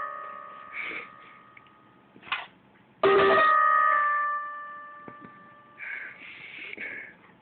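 A Persian kitten sneezing and snuffling: a short sharp sneeze a little over two seconds in, and breathy sniffs near the end. Around them a Casio electronic keyboard chord fades away, and a new chord strikes about three seconds in and rings down slowly.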